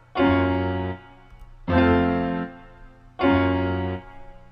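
Software piano playing a dark, minor-key trap chord progression: three sustained chords struck about a second and a half apart, each held for under a second and then cut off.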